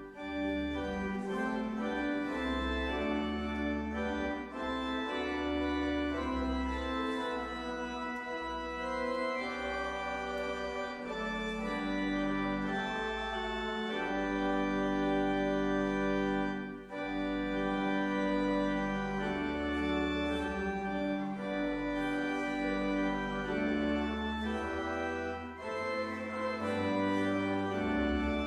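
Church organ playing slow, sustained chords over changing bass notes, with a few brief pauses between phrases.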